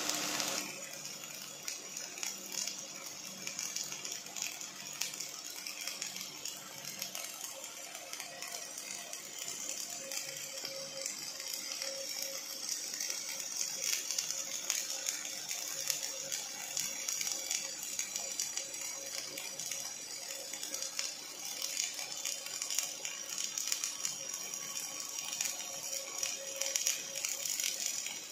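Robotic MIG welding arc on steel crackling and sizzling steadily, a fast dense crackle with a faint steady hum underneath.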